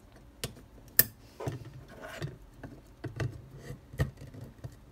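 Scattered plastic clicks and light knocks of cable connectors being plugged into an Antminer control board: an Ethernet plug pushed into its socket and the power supply's 6-pin connector pressed in. The sharpest click comes about a second in.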